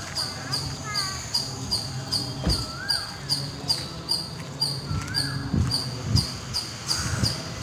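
Birds calling: a high, thin chirp repeated evenly about two to three times a second, with an occasional short whistled note that rises and falls.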